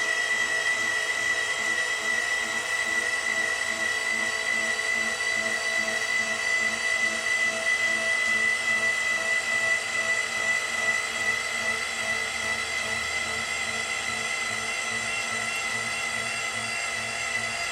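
Steady high-pitched whine of a small electric motor running continuously, with a faint regular pulsing underneath.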